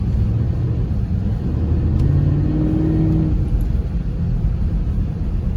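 Car engine with a muffler delete running under throttle, a steady low exhaust rumble whose pitch rises for a second or so about two seconds in.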